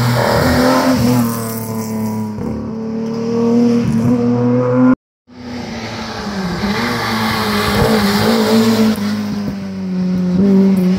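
Historic rally car engines revving hard as the cars race along a tarmac stage. The engine note climbs and drops with gear changes. About five seconds in it cuts off abruptly, then a second car's engine builds as it approaches, loudest near the end.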